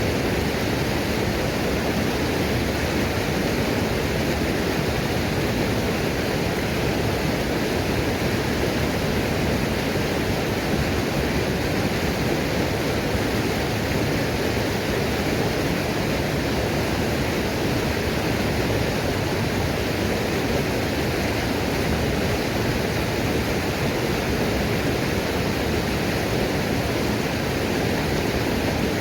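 Waterfall pouring and splashing in a steady, unbroken rush of water.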